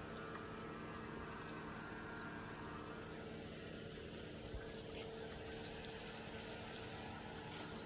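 Steady low engine hum with faint road noise from a vehicle moving slowly along a street.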